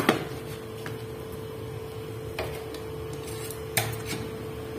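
Electric mini food chopper run in a few short pulses while blending a marinade, over a steady hum.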